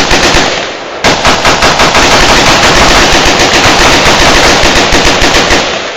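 Rapid semi-automatic rifle fire from an AR-15 and a Yugoslavian M70 AB2 shooting at the same time, many shots a second. It starts abruptly, dips briefly just before a second in, then runs on as a dense stream of shots until it stops near the end.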